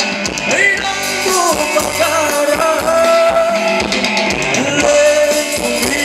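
Thai ramwong band music with a singer: a bending vocal melody with long held notes over the band's accompaniment.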